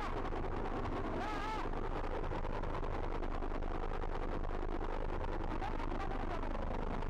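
Rescue helicopter hovering overhead: a steady, rapid chop of rotor blades over engine noise.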